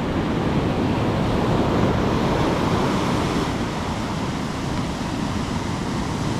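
Steady rush of ocean waves and wind, with wind buffeting the microphone.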